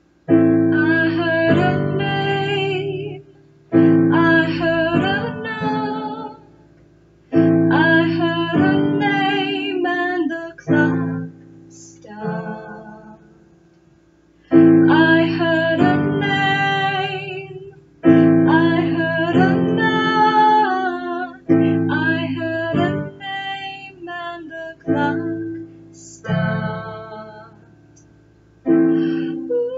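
A woman singing a slow song to her own digital piano accompaniment. Each phrase opens with a struck chord, and the voice and chord fade into a short pause before the next phrase.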